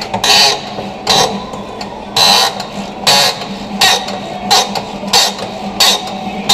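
Rhythmic squeaking from a fastener under the rear of a BMW E36 as it is worked back and forth with a hand wrench, about one squeak every two-thirds of a second, like bedsprings.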